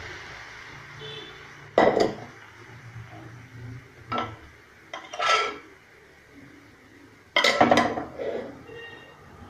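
Metal utensils knocking and clinking against a metal cooking pan, a few separate strikes spread over several seconds, with a louder run of clatter near the end.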